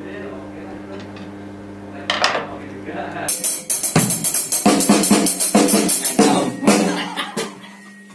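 Steady amplifier hum, then a cymbal crash about two seconds in. From about three seconds in come loose, irregular drum kit hits and cymbal strikes, with other pitched instrument sound and voices mixed in.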